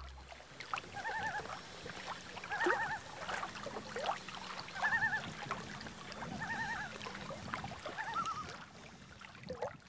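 An animal's short wavering call, repeated about five times at intervals of a second and a half to two seconds, over faint outdoor background noise.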